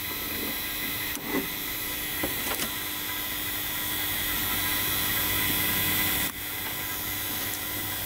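Refrigerant vacuum pump running steadily while it evacuates the heat pump's refrigerant circuit, a constant hum with hiss. A few sharp clicks from hand tools in the wiring, the strongest about six seconds in.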